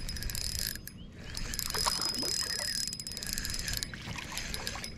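A hooked redear sunfish splashing at the surface as it is reeled in toward a small jon boat, over a dense, pulsing high chirring of insects that breaks off briefly a couple of times.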